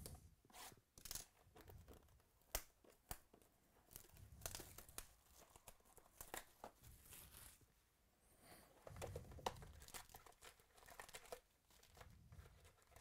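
Faint crinkling and tearing of plastic shrink-wrap as it is pulled off a cardboard trading-card hobby box, with scattered sharp crackles and light cardboard handling as the box lid is opened.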